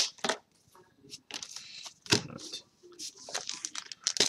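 Foil booster-pack wrappers and trading cards crinkling and rustling as packs are handled, in short bursts with quiet gaps, with one louder knock about two seconds in.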